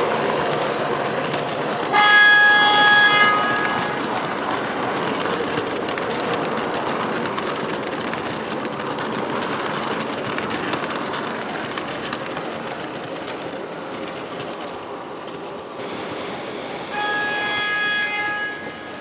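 MTH R40 subway model train running on the layout, its onboard sound system playing steady subway rolling noise. It sounds a horn twice, about two seconds in and again near the end, each blast a little over a second long.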